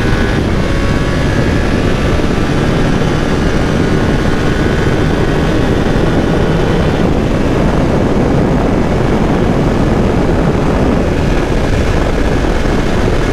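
Triumph Tiger 900's three-cylinder engine pulling hard at full throttle, upshifting from third to fourth and then to fifth gear while accelerating from about 150 to 190 km/h. Heavy, steady wind noise lies over the engine throughout.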